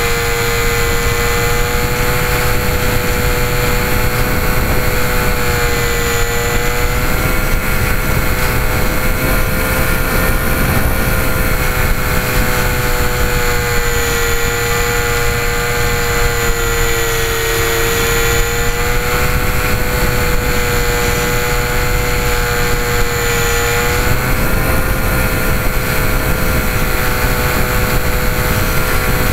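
Parkzone Ultra Micro Mosquito's twin small electric motors and propellers running in flight, heard from a camera mounted on the plane. It is a steady high whine whose pitch wavers and dips slightly with the throttle.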